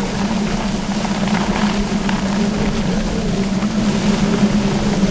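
Hurricane eyewall winds blowing hard across the microphone: a loud, steady rush with a constant low hum underneath.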